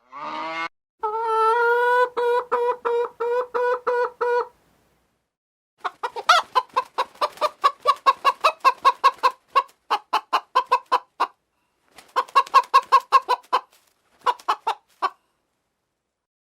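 Chickens clucking: a drawn-out, pulsing call first, then runs of quick short clucks broken by brief pauses.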